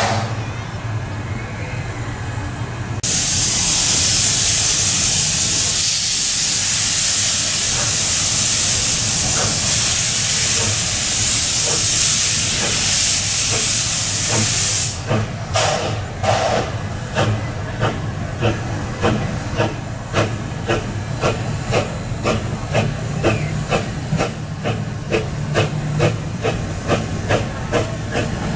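Steam locomotive: a loud steady hiss of steam venting from about three seconds in to about halfway, then the engine's exhaust chuffs in an even beat of about two a second as it works along the track.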